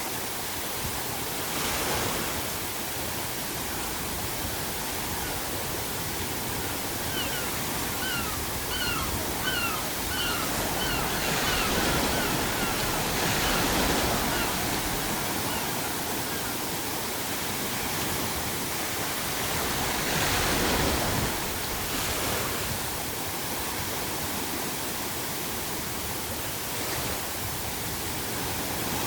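Sea waves breaking in a steady rush that swells several times. About a quarter of the way in, a gull gives a quick run of about ten short calls lasting around four seconds.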